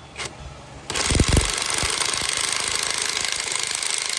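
A power tool starts about a second in and runs with a loud, even hiss that has a fast flutter in it.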